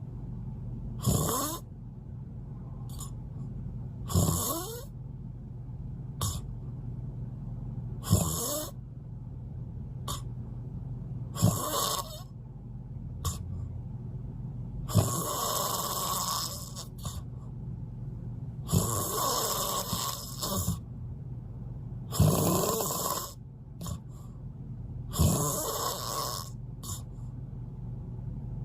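Loud snoring: a harsh snore about every three to four seconds, each with a rising pitch, over a steady low hum.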